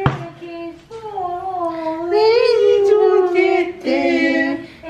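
A high voice singing a wordless tune in a few long, wavering held notes, rising in the middle and dropping lower near the end.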